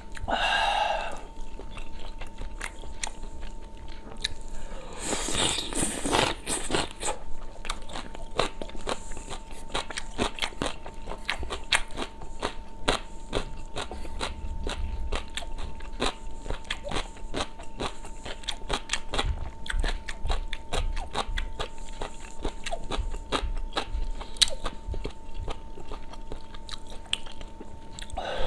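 Close-miked eating of spicy sujebi and dumpling soup: steady chewing with many small wet clicks, and a louder slurp about five seconds in.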